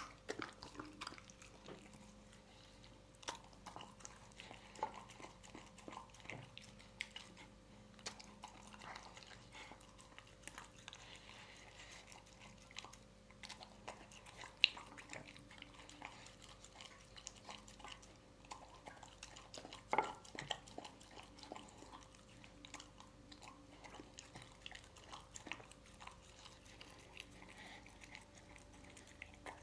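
A dog eating wet canned dog food from a bowl: quiet, irregular chewing with small wet clicks, and a few sharper clicks, the loudest about 15 and 20 seconds in.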